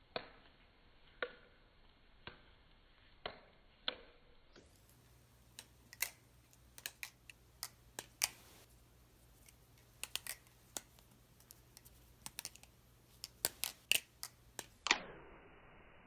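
Balisong (butterfly knife) handles clacking as the knife is flipped open and closed. Single sharp clicks come about once a second at first, then a quicker, irregular run of clicks, ending in a louder clack near the end.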